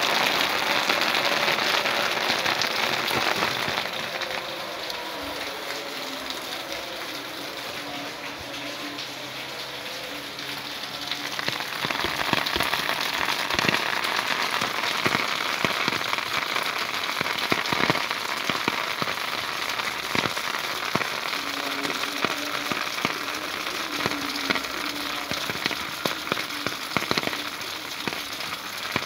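Heavy rain falling steadily, with close, sharp drop hits on the awning overhead. The downpour eases for several seconds and picks up again about twelve seconds in.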